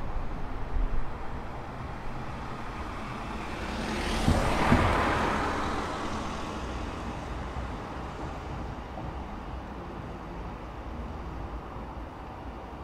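A car drives past on the street, its sound swelling to a peak about five seconds in and then fading away, over a steady low traffic hum.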